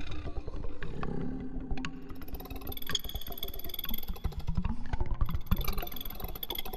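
Daxophone sounds: low, sliding, creaky tones over a dense scratchy crackle of rapid clicks. A thin high whistle runs through the middle for about two seconds.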